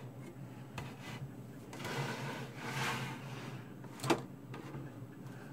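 Hands turning and shifting a Heathkit HG-10 VFO's metal chassis on a cutting mat: soft rubbing and shuffling, with one sharp click just after four seconds in.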